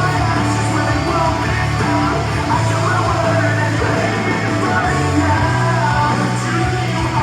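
Rock music with singing, playing loud and steady.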